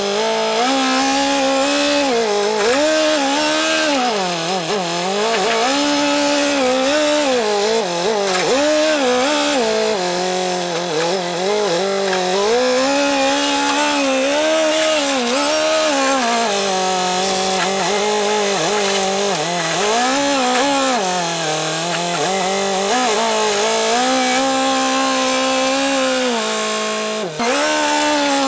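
Telehandler engine running at high revs, its pitch rising and falling again and again as the throttle and boom hydraulics are worked to lift hay bales with the grapple. There is a brief drop near the end.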